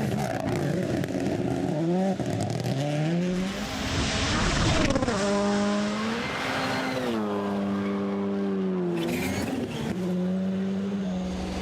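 Rally car engine at full throttle, its pitch climbing and then dropping sharply at each gear change, with a rush of noise about four seconds in as a car passes.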